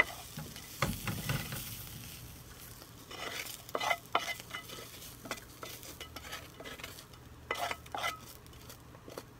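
A wooden spoon scrapes potato hash out of a hot frying pan onto a plate while the potatoes are still sizzling. The sizzle fades, and there are louder scraping strokes about three to four seconds in and again near the end.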